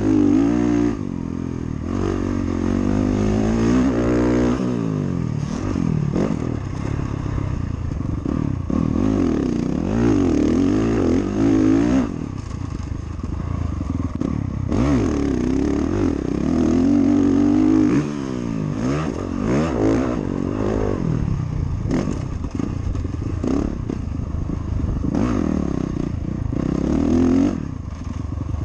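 Motocross dirt bike engine revving hard and easing off again and again while being ridden around a dirt track, its pitch climbing and dropping with each burst of throttle.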